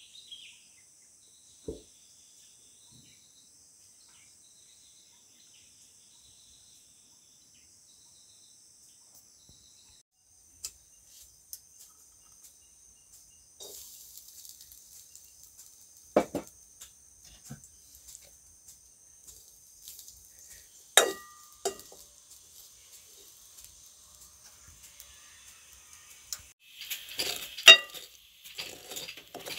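A spatula knocking and scraping rice around a heavy black pan. A few separate knocks come first, then from near the end a dense run of clattering and scraping with short metallic rings. Steady high insect trilling sounds in the background.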